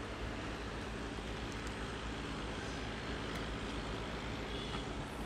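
An engine idling steadily: a low, even drone with no change in speed.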